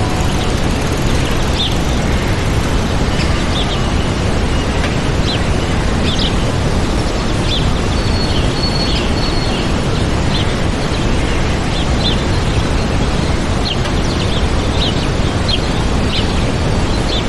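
Waterfall rushing steadily, with small birds chirping over it in short high calls every second or so and a couple of brief held whistles.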